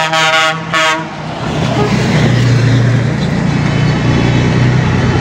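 A horn sounds loudly for about the first second as a Scania 113H 360 truck drives past, then its six-cylinder diesel engine runs in a steady low drone that swells as it passes and stays loud to the end.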